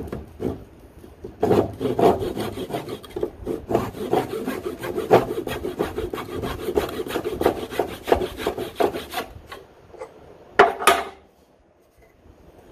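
Lie-Nielsen tapered dovetail saw cutting a test kerf in hard ash against a magnetic dovetail guide: a few starting strokes, then quick, steady back-and-forth sawing that stops at about nine seconds. A short, louder scrape follows a little before the end.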